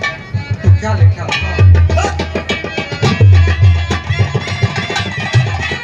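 Instrumental interlude of Haryanvi ragini folk music: a fast hand-drum beat with heavy deep strokes and sharp slaps, under a melody instrument, starting about half a second in.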